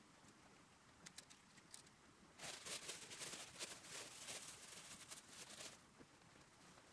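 Plastic bag crinkling and rustling as it is handled, a dense run of crackle lasting about three seconds from a little past two seconds in, after a few faint clicks.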